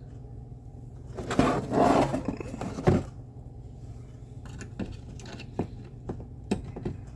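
Handling noises as a CMOS coin-cell battery is fitted into its motherboard socket: a rough scraping rustle ending in a sharp click, then several small clicks.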